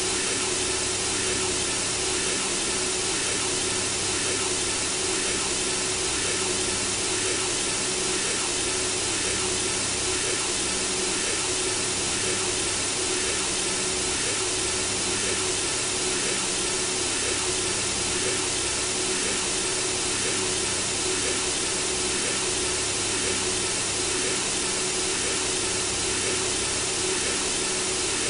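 Synthesizer-generated white noise hissing steadily, with a faint humming tone mixed in.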